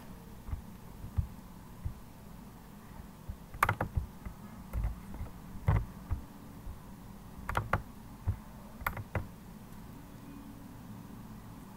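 Computer keyboard keys tapped irregularly, about a dozen separate taps, stopping about nine seconds in.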